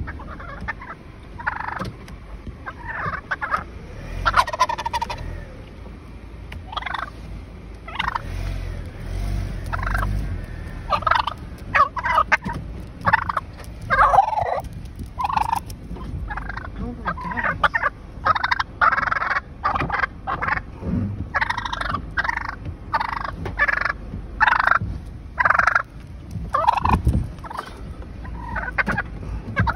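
Male wild turkey gobbling again and again at close range, the calls sparse at first and coming thick and fast in the second half, over the low rumble of a car.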